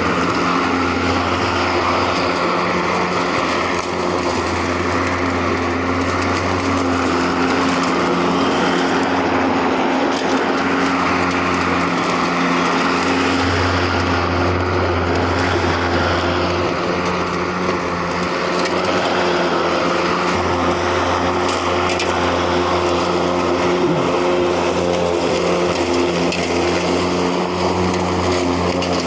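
Mowrator S1 AWD battery-powered remote-controlled lawn mower running steadily as it mows and drives about, a constant motor hum with small rises and falls in level.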